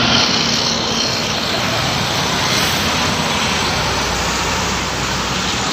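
Large road vehicle, most likely a tour bus, passing close by as a steady rush of engine and tyre noise, with no horn sounded.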